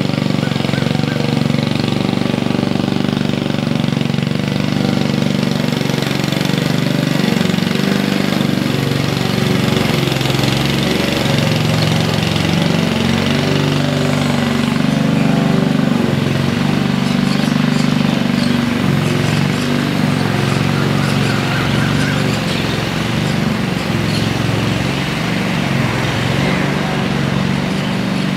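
Petrol walk-behind lawn mower engine running steadily as the mower is pushed across the lawn cutting grass.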